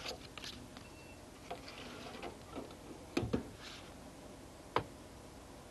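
A floppy disk slid into a PC's drive A and the drive door latched, then a keyboard key pressed: a few small clicks, a sharp double clack about three seconds in and a single sharp click nearly five seconds in.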